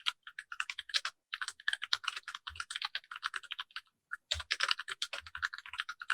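Typing on a Keychron K6 compact mechanical keyboard resting on a deskmat: rapid key clicks in quick bursts, with short pauses about a second in and about four seconds in.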